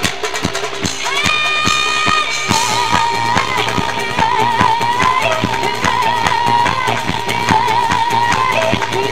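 Live band music: a steady drum beat, with a held keyboard chord about a second in, then from about two and a half seconds a low bass drone and a high wavering vocal line over the beat.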